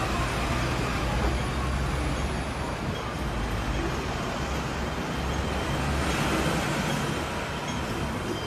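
City street traffic: a steady rumble and hiss of passing cars and buses.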